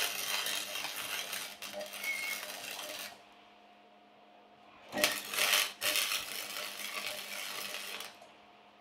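Wire-feed welder laying welds on steel bodywork: a crackling, hissing arc that stops about three seconds in, then starts again about two seconds later and runs for roughly three more seconds.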